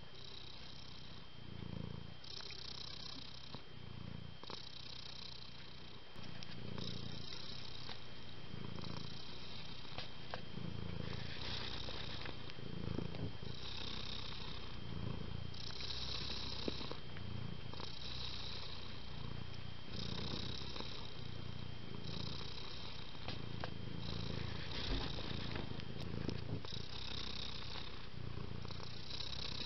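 Domestic cat purring steadily, the rumble rising and falling with each breath about every second and a half to two seconds. It grows louder about six seconds in.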